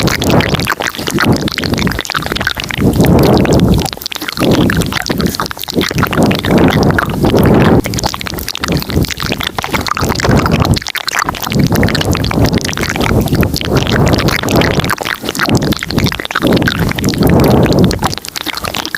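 Layered ASMR mouth sounds recorded close to the microphone: many overlapping clicks with fuller swells coming and going every one to two seconds.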